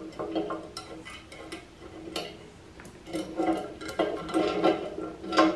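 Irregular light metallic clicks and clinks as a bench grinder's tool rest and its mounting bolts are handled and fitted by hand.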